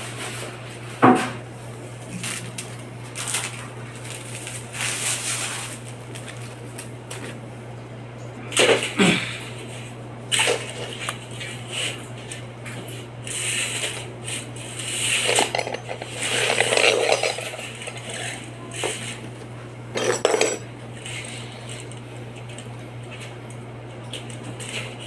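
Intermittent light metallic clinks, knocks and scrapes from aluminum screen-door frame parts and tools being handled, over a steady low hum.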